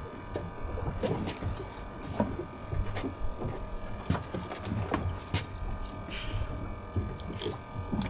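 Scattered, irregular clicks and knocks of a fish being handled and unhooked, over a steady low rumble.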